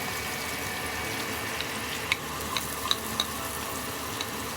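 Fish frying in hot oil: a steady sizzle with scattered sharp pops and crackles.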